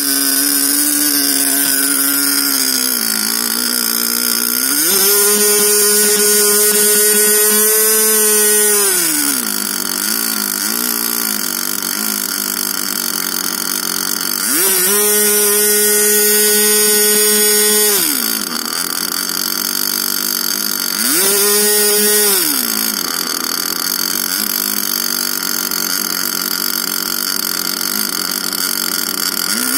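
MVVS 3.5 cc two-stroke model aircraft engine with an OS Max G5 glow plug, running on petrol mixed with 10% synthetic oil and spinning its propeller. It idles low, is opened up three times to a steady high-pitched buzz, each spell shorter than the one before, and glides back down to idle each time, then revs up again at the very end.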